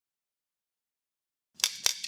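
Dead silence, then about one and a half seconds in a short, sharp sound: two clicks about a quarter second apart followed by a brief crackly tail.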